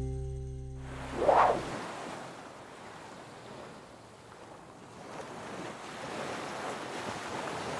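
Ocean surf washing on a beach, an even rush that swells again near the end. It starts after a plucked-string music chord dies away and a short whoosh about a second in.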